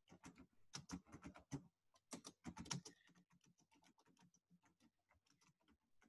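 Faint computer keyboard typing: quick, irregular key clicks as a sentence is typed out. The taps are louder for the first three seconds or so, then lighter.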